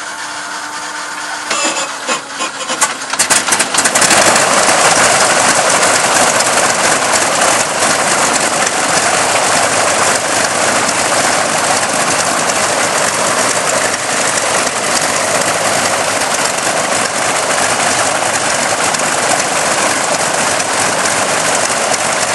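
Boeing Stearman biplane's radial engine starting: a few ragged, uneven firings about two seconds in, catching at about four seconds, then running steadily and loud.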